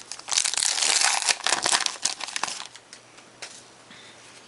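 Crinkling and rustling of trading-card packaging and cards being handled: a dense run of crackles for about two and a half seconds that then dies down to a few faint ticks.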